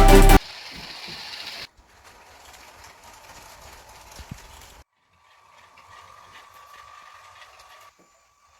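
Loud electronic music cuts off abruptly just after the start, then a motorized Lego train runs faintly: a quiet mechanical whirr from its small electric motor and gearing, in short pieces with sudden breaks, with a faint steady whine in the later part.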